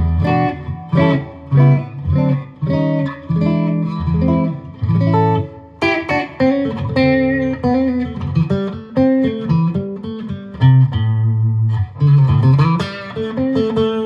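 Latitude Lark Telecaster-style solid-body electric guitar played through a Fender GTX100 amp with the pickup selector in the middle (both pickups) position: a continuous run of picked single notes and short melodic phrases, brighter and busier from about six seconds in.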